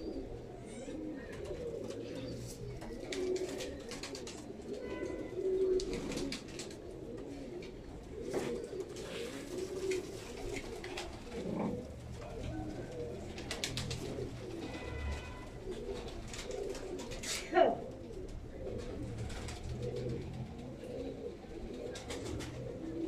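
Imam Deen pigeons cooing without a break, many short low coos overlapping, with scattered light clicks and rustles. About two-thirds through, a brief sharp falling sound stands out as the loudest moment.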